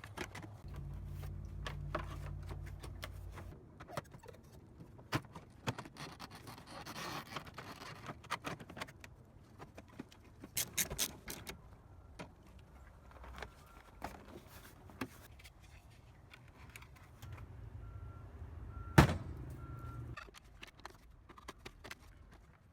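Scattered clicks, knocks and clatter of parts and tools being handled, with one loud knock about nineteen seconds in.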